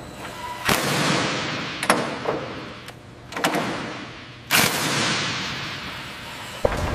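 A series of heavy metallic clanks and thuds, about five, each ringing out with a long echo. They come from fitting a heavy gun assembly into a helicopter's chin turret mount in a large hangar. A low rumble begins near the end.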